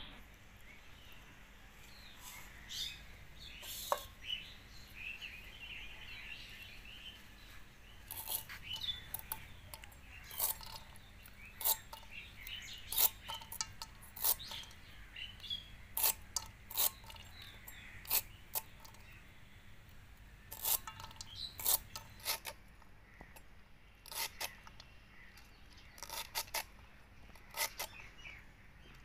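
Crisp snips of a curved blade cutting through bundles of kharkol (arum) leaf stalks, coming irregularly in small clusters, the short pieces dropping into a metal pan. Birds chirp faintly in the first few seconds.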